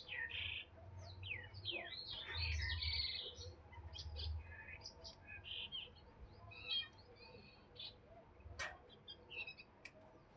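Plum-headed parakeet chirping in many short, quick notes, some sliding down in pitch, over a low rumble in the first few seconds. A single sharp click comes about eight and a half seconds in.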